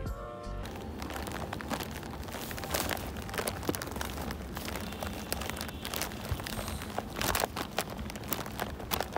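A plastic carrier bag with snack packets inside crinkling and rustling in a hand while walking, full of sharp crackles, with footsteps on pavement.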